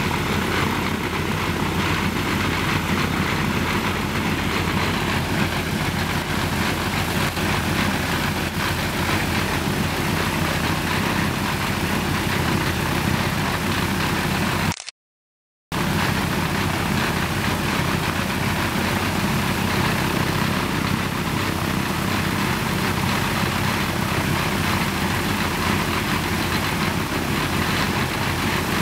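Ilyushin Il-14's Shvetsov ASh-82T fourteen-cylinder radial piston engine running steadily on the ground during an engine run-up, with its propeller turning. The sound cuts out for about a second halfway through.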